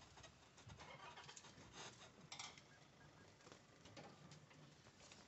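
Faint bush ambience, close to silence: soft scattered crackles and rustles, with a faint bird call behind them.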